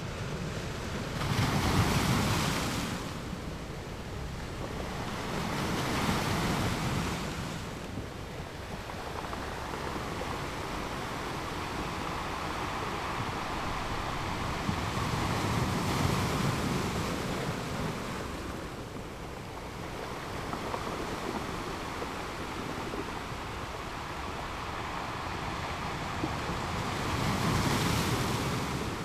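Sea waves washing on the shore, the rush swelling and fading in slow surges every few seconds, loudest about two seconds in and near the end, with some wind on the microphone.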